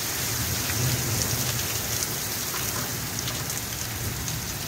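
Heavy rain pouring down and splashing on a flooded road, with scattered close drips ticking. A low rumble swells about a second in and fades over the next couple of seconds.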